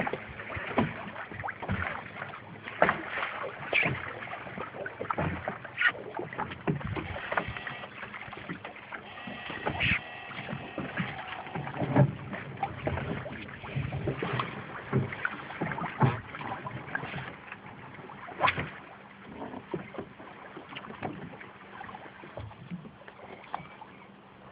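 Knocks, clicks and water sounds on a small fishing boat, coming irregularly throughout, over a faint low steady hum.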